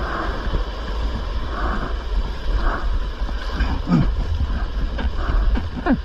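Seawater sloshing and surging among rocks around a paddleboard, with a steady low rumble and a couple of short gurgles, about four seconds in and again near the end.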